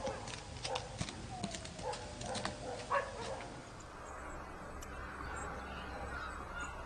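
Reindeer sounds: scattered sharp clicks and a few short low calls in the first half, giving way to a steady low background noise.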